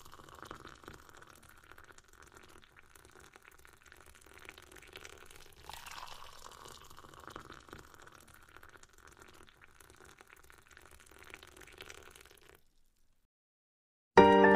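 Faint, steady background noise with no clear source, cutting to silence about twelve and a half seconds in; music starts loudly just before the end.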